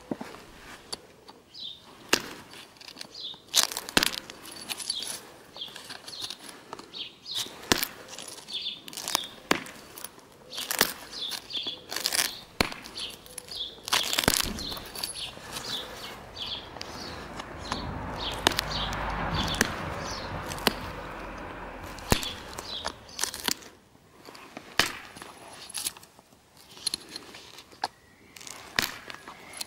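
Flint being knapped: sharp, irregular clicks and snaps as flakes come off a flint Clovis point, one to a few seconds apart. In the middle there are a few seconds of rougher rubbing noise.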